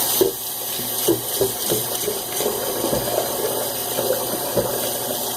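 Water running steadily from a tap into a sink, with small splashes.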